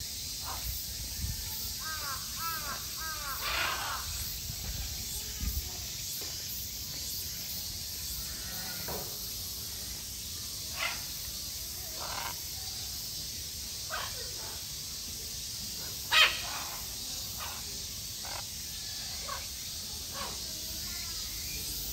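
Red-and-green macaw giving harsh, short squawks at irregular intervals, with one much louder squawk about two-thirds of the way through and a quick run of softer, bending chirps a few seconds in.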